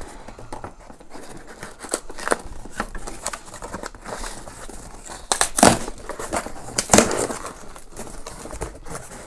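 Cardboard shipping box being pulled and torn open by hand: scraping and crackling of cardboard, with two louder rips about two-thirds of the way through, a second or so apart.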